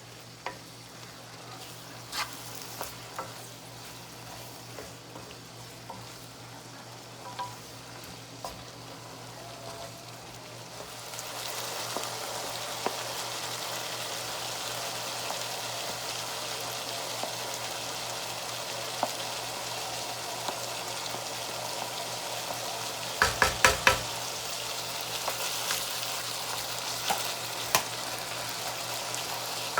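Food sizzling in a frying pan while being stirred with a utensil, with scattered light clicks. About a third of the way in the sizzle becomes clearly louder, and a little past two-thirds there is a quick run of sharp knocks of the utensil against the pan.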